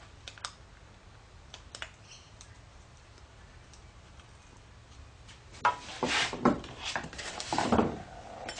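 Faint metallic clicks of a screwdriver working at a mini lathe's headstock, then, about five and a half seconds in, a couple of seconds of louder knocking and rustling as parts are handled close by.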